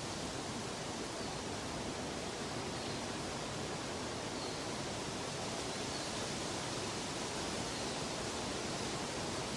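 Steady, even rushing noise with no pulse or change, a continuous water-like or pink-noise sound bed.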